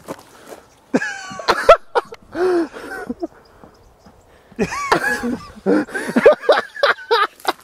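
Men's excited shouts and laughter in two bursts, the first about a second in and the second after a short lull.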